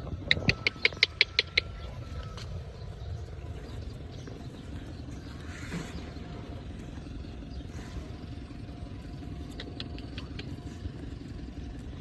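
A dog giving a quick run of about eight short, high yips, then a few fainter yips near the end, over a steady low background rumble.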